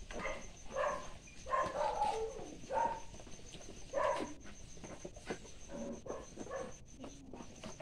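Newborn piglets squealing in short, high calls, several close together in the first half and fainter ones toward the end.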